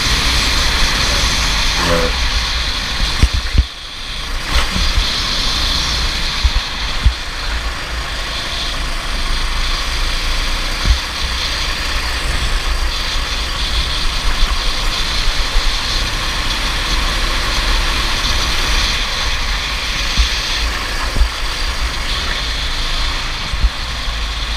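Racing kart engine running at speed, heard from onboard with heavy wind buffeting on the microphone; the sound dips briefly about four seconds in.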